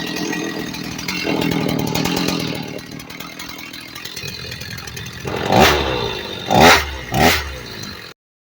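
Freshly rebuilt Stihl 029 two-stroke chainsaw running at idle after being fired up, then revved three times near the end, its pitch rising and falling with each blip of the throttle.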